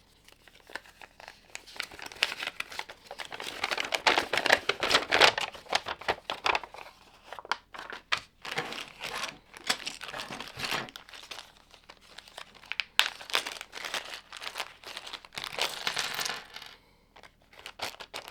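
Loose plastic LEGO pieces clattering and rattling together in dense runs of small clicks, loudest about four to five seconds in.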